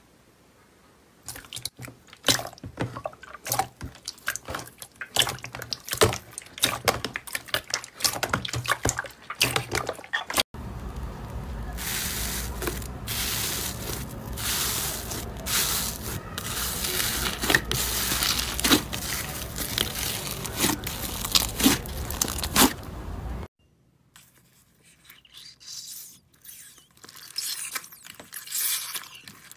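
Slime being squished and poked by hand, in three parts. First, sticky wet clicks and pops begin about a second in. From about a third of the way through, a louder, dense crackle as fingers press foamy slime with foam beads. This stops abruptly, and quieter scattered squelches follow near the end.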